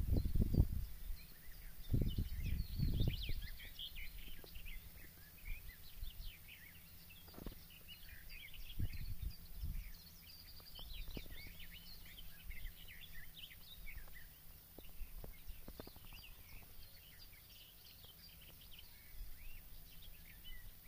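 Many small birds chirping and twittering together, short calls overlapping throughout. Low rumbles on the microphone at the very start and again about two to three seconds in, then a few faint knocks.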